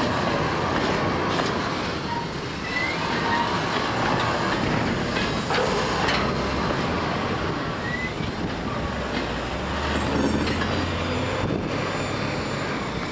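Freight train of container flat wagons rolling past, the steel wheels rumbling and clattering over the rails.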